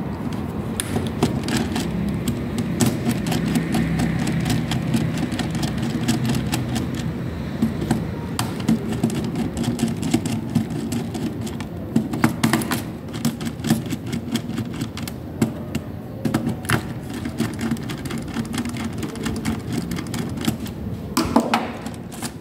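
Screwdriver working the terminal screws of miniature circuit breakers: irregular small clicks and scrapes of metal on plastic, with a cluster of sharper clicks near the end. A steady low hum runs underneath.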